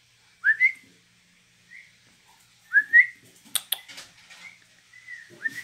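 A person whistling short rising calls to call a dog: two loud two-note whistles, about half a second in and about three seconds in, and softer ones after. A few sharp clicks come between them.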